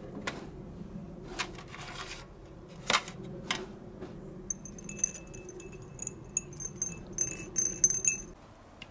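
Small steel screws clinking against the inside of a glass jar as the jar is handled and swirled. A few knocks come first, then a quick run of chinks, each ringing with a clear high glassy tone.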